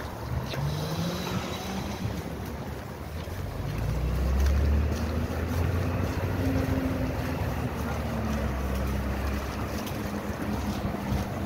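Street traffic: vehicle engines passing with pitch gliding up and down, the loudest low rumble about four seconds in, over wind noise on the phone's microphone.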